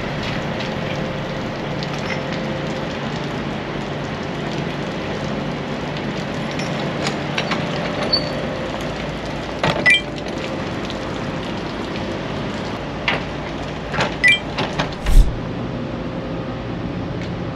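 Steady hum of an idling truck engine, with sharp metal clanks about ten seconds in and a cluster of clanks a few seconds later ending in one heavy thump, the loudest sound, near the end.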